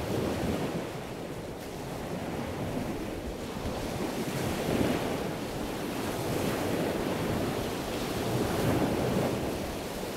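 Sea waves washing in with wind noise, swelling and easing every few seconds.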